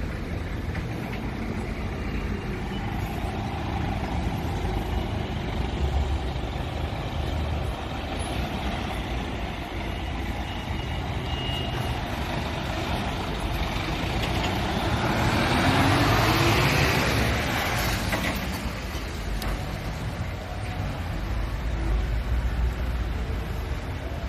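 Road traffic on a town street: a steady low hum of passing cars, with one vehicle driving close by about two-thirds of the way through, swelling to the loudest point and fading away.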